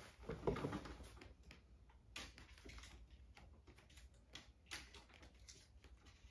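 Faint, irregular clicks and taps of small pieces being handled on a tabletop, with one louder knock about half a second in.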